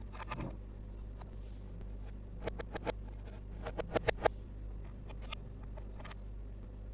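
Plastic toy pieces handled, giving scattered light clicks and taps, with a quick run of four sharp clicks about four seconds in, the loudest; a steady low hum underneath.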